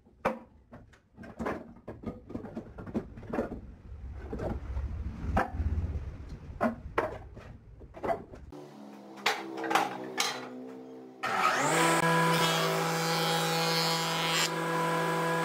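Wooden boards knocking and clattering as they are pulled from a scrap pile and dropped, irregular knocks for several seconds. About eleven seconds in, a woodworking jointer starts running with a loud, steady hum.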